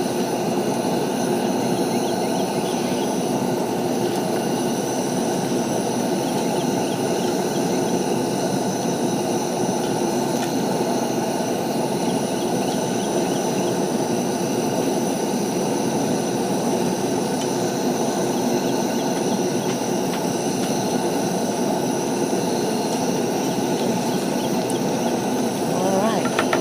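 Steak, vegetables and shrimp in butter cooking in pans on a camp stove, a loud, steady sizzling rush that runs on without a break.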